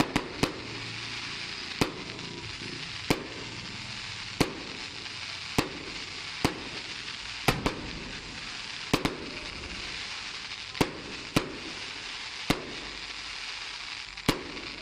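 Aerial fireworks shells bursting in a steady series of sharp bangs, about one a second, over a continuous hiss.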